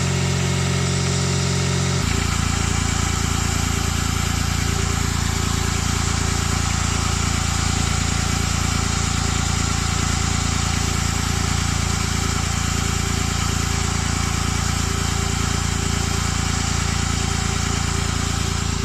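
Smart Roadster's three-cylinder turbo engine idling on a cold start, with the knock that shows on this engine when it is started cold. The engine note changes about two seconds in, then holds steady.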